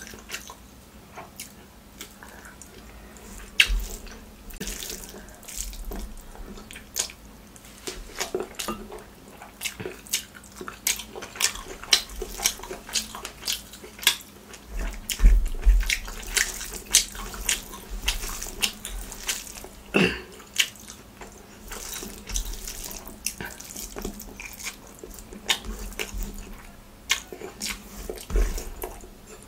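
Close-miked wet eating sounds of rice and mutton curry eaten by hand: chewing, lip and finger smacks, and the squelch of curry-soaked rice being mixed, as a steady stream of irregular wet clicks with a few soft low thuds.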